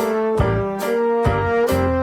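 Background music: brass instruments playing a tune over a steady beat.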